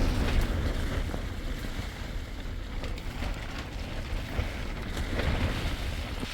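Steady rain falling, with scattered drop ticks and wind buffeting the microphone as a low rumble.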